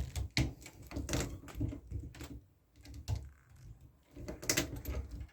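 Hand blind-rivet gun squeezed several times, giving a run of sharp clicks at uneven intervals as it sets a blind rivet.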